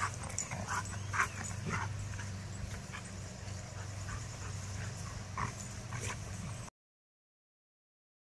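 Goldendoodles at play: a few short, high yips and whimpers over a steady low hum. The sound then cuts to dead silence about two-thirds of the way through.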